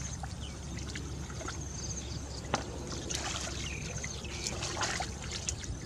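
Hands splashing and sloshing in shallow muddy water while groping for fish, over a steady low rumble, with scattered small ticks and one sharp click about two and a half seconds in.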